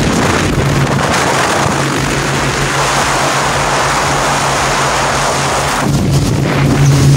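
Outboard motor running steadily as a fishing boat travels at speed, with a steady low hum under loud rushing wind and water.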